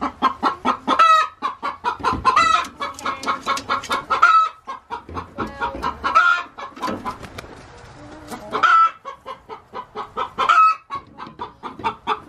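Chickens clucking: a fast run of short clucks broken every couple of seconds by a longer, louder cackle, with a quieter spell about seven seconds in.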